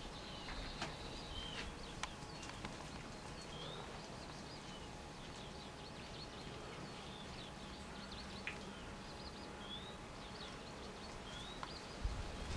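Faint high chirping calls, short rising and falling chirps every second or so, over a steady hiss, with a few soft clicks. A few low bumps near the end.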